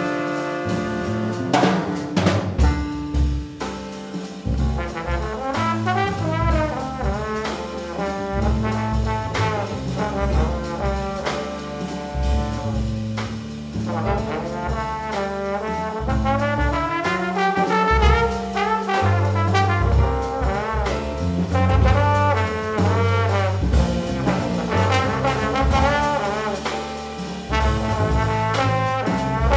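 Jazz combo playing a minor blues: trombone out front over electric bass and drums, with trumpets playing alongside it at the start.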